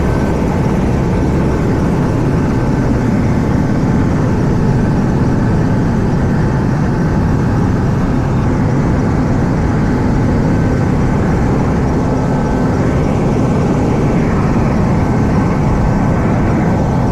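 An AW189 helicopter's turboshaft engines and rotors running steadily at ground idle with the collective down, sitting on the deck: a constant low drone with a thin, steady whine over it.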